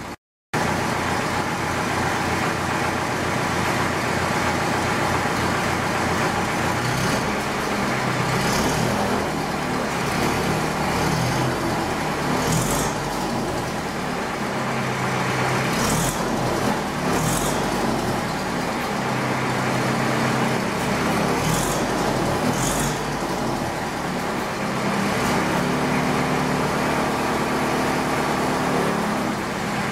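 Ferguson TEF 20's four-cylinder diesel engine idling steadily, left running so radiator sealant circulates through the leaking cooling system. A few brief high-pitched noises cut through it in the middle of the stretch.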